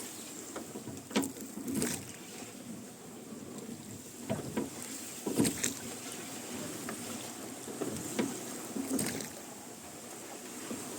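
Wooden oars of a rowboat dipping and splashing, with the oarlocks creaking, in an unhurried rowing rhythm of about one stroke every three to four seconds.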